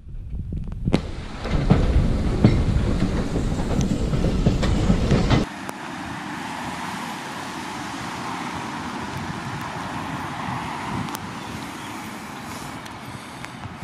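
Railway carriage running along the track: a loud rumble with frequent clicks from the wheels over the rails. About five seconds in, it cuts off suddenly to a quieter steady rumble.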